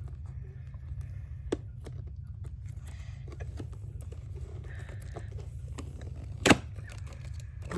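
Hands handling and opening a cardboard toy box after pulling off its tape: scattered small clicks and rustles of packaging, with a sharp click about a second and a half in and a louder one about six and a half seconds in, over a steady low hum.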